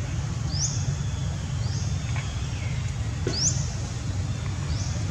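A bird calling repeatedly with short rising chirps, about one a second, over a steady low rumble.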